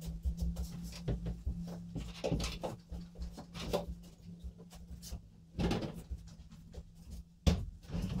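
Large pine workbench frame being handled and tipped down onto its casters on a wooden floor: scattered wooden knocks and scrapes, with a sharp thump near the end as it lands. A low steady hum runs underneath.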